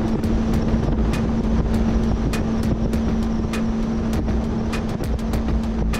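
Bass boat running fast across choppy water: a steady outboard engine hum under rushing water and wind, with short sharp knocks a few times a second.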